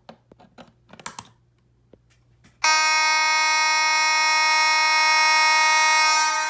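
A few light clicks and taps, then about two and a half seconds in, mechanical fire alarm horns (a Simplex horn-strobe and a Spectronics 450) start sounding together, loud and steady without a break. The system has gone into alarm from the smoke detector being activated.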